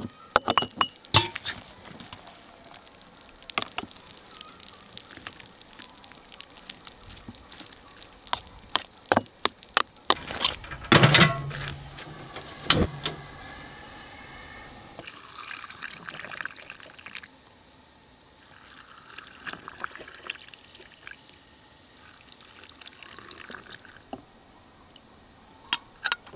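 Water poured into glass mason jars packed with cooked mushrooms for hot-pack canning, with scattered sharp clinks of glass and metal lids as the jars are filled and capped.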